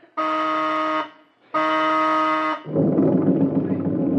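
Two long, steady buzzer-like signal blasts, each about a second, followed at about two and a half seconds in by a PT boat's motors starting and running with a heavy low rumble as it gets underway.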